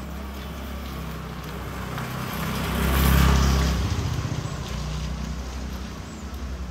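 A motor vehicle passing close by with its engine running: the sound grows to a peak about three seconds in, then fades away.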